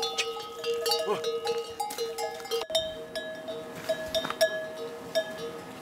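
Yak neck bells clinking and ringing as the animals move, several metal bells at different pitches, each stroke ringing on. A short gliding animal call comes about a second in.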